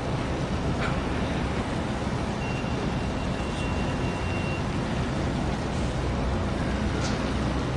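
Steady low rumble of distant engines under a continuous noise haze, with a thin high tone held for about two seconds in the middle and a couple of brief high chirps.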